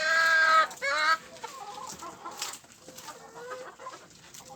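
Chickens clucking and calling: a loud, drawn-out call ends about half a second in, a shorter one follows just after, then softer scattered clucks.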